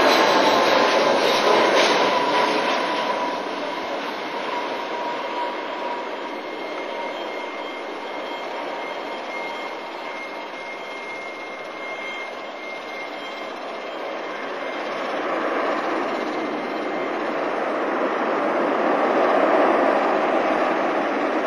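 Airbus A319 corporate jet's IAE V2500 turbofans on landing: a loud jet whine close overhead with a slowly falling tone, easing off as the jet touches down and rolls away, then swelling again in the last few seconds.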